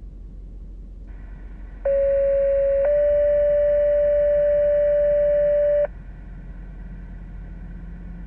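Two-tone sequential dispatch page over a radio scanner: a one-second alert tone steps straight into a slightly higher tone held about three seconds, then cuts off, over a steady radio hum and hiss. The tones alert the ambulance crew and open the dispatch call.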